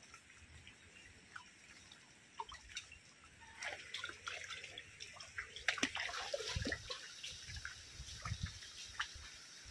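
Light rain hissing steadily, with water splashing and dripping as someone walks through flooded, muddy ground. The splashes and footsteps start about three and a half seconds in.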